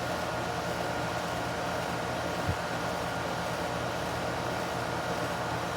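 Outdoor air-conditioning condenser unit running: a steady mechanical hum with the fan's whoosh, plus one brief low bump about halfway through.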